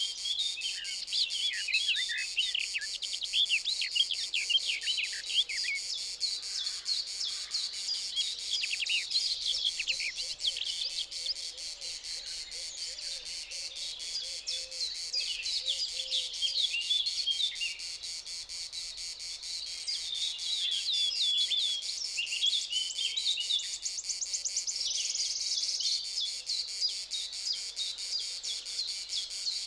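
Several birds chirping and singing over a steady high-pitched insect chorus, with a brief rapid trill near the end.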